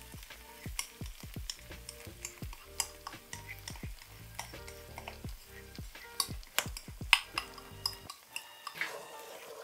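Stir-fry sauce sizzling in a hot wok on sautéed onions and garlic, with irregular sharp crackles and pops, the loudest about seven seconds in.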